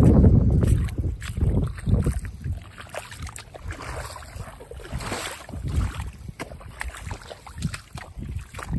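Boots splashing and squelching through shallow floodwater and mud, an irregular run of footsteps. Wind buffets the microphone in the first second.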